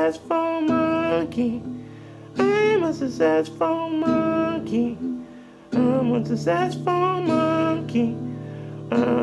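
A song playing: a wavering lead melody in short phrases over a steady guitar backing.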